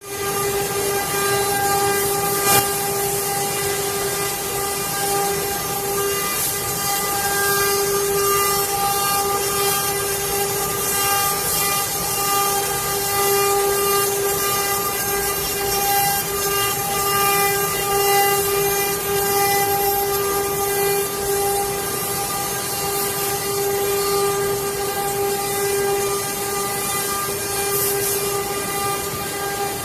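CNC wood router spindle running, a steady high whine over a hiss of cutting noise, with a brief click about two and a half seconds in.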